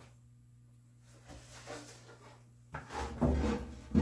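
A wooden board being handled and shifted on a workbench: quiet at first, then scraping and knocks of wood on wood starting a little over halfway through and growing louder near the end.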